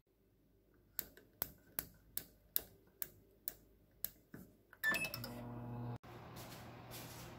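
Samsung oven's control dial clicking through its detents as the bake time is turned up, about ten clicks over four seconds. About five seconds in the oven starts and runs with a steady low hum.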